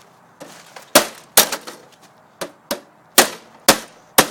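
Repeated sharp knocks and cracks as a part of a printer is worked loose, about ten in four seconds at an uneven pace, each dying away quickly.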